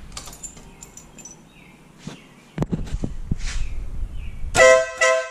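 Compact electric air horn on a motorcycle sounding one short two-note blast of about three-quarters of a second, cutting off sharply: its first test after installation. Before it come a few knocks and a low rumble.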